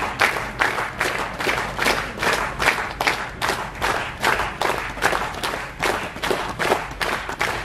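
A crowd clapping in unison at a steady beat of about two and a half claps a second.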